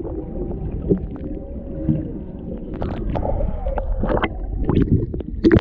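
Humpback whale song heard underwater through a GoPro's built-in microphone: faint drawn-out tones over a low steady water rumble, with scattered sharp clicks and a louder burst near the end.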